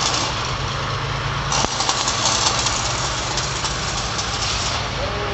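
An engine idling steadily with a low hum, under a crackling hiss of metalwork throwing sparks that grows louder about a second and a half in and eases near the end.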